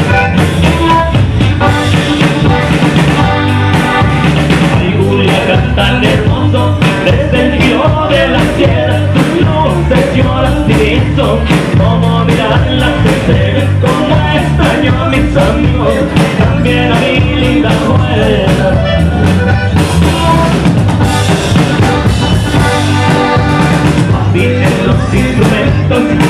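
Norteño band playing a corrido live: accordion over bass and drums in a steady dance rhythm, loud and continuous.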